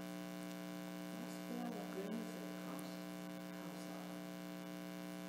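Steady electrical mains hum, several fixed tones held evenly throughout, with a few faint brief sounds between about one and a half and three seconds in.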